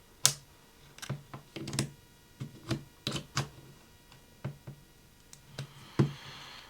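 A plastic opening pick clicking and tapping irregularly as it is worked into the seam between an iPhone 6 Plus display and its aluminium frame to separate the screen, with a brief scraping slide near the end.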